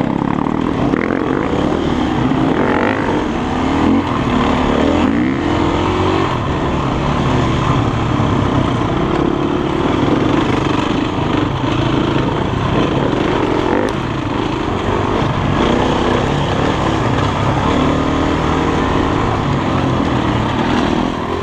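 Enduro dirt bike's engine running under way on a muddy trail, its pitch repeatedly rising and falling as the rider opens and closes the throttle.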